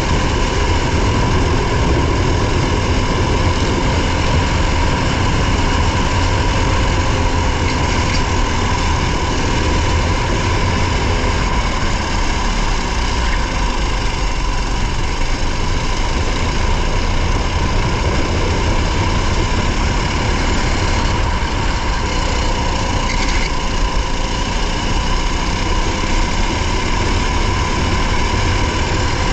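Race car engine heard from inside the car, running hard with little change in pitch, over a steady haze of road and wind noise.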